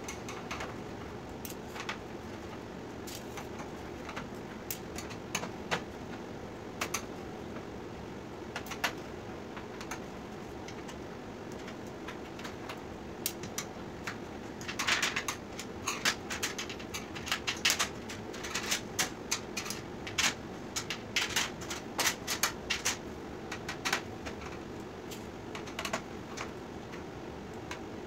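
Scattered metallic clicks and clinks as a screwdriver backs out screws and LED backlight strips are pulled off a TV's sheet-metal backlight panel. The clicking is sparse at first and turns into a busy run of clinks about halfway through.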